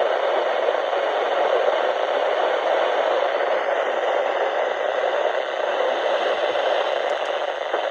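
Steady hiss of radio static from a weather radio's speaker, with no voice on the channel.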